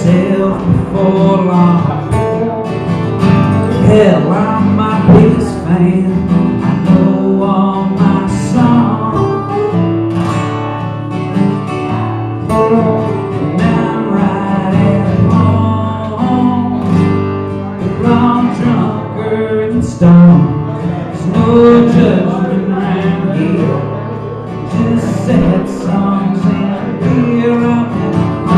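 Two acoustic guitars played together live, strumming a song in a continuous, full-sounding passage.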